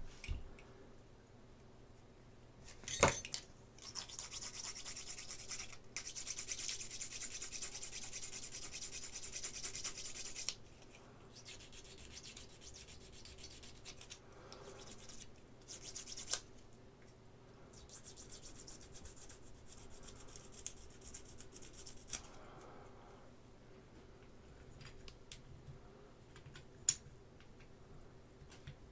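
Quick abrasive rubbing strokes on a resin model kit part worked down by hand, a long spell of several seconds followed by shorter, fainter ones. There are a few sharp clicks of resin parts being handled.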